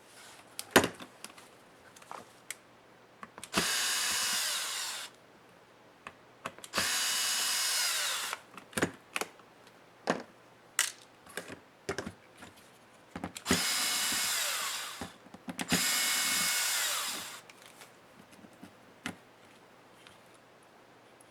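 Small electric screwdriver running in four short bursts of about a second and a half, each a steady whine that winds down as it stops, backing out small laptop screws. Sharp clicks and taps of tools and small parts being handled fall between the bursts.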